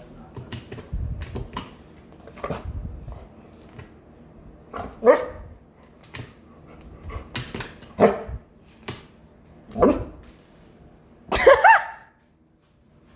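Pet dog barking several times in short calls, the last one longer and louder, bending up and down in pitch like a yelp. Soft rustling and thumps in the first three seconds.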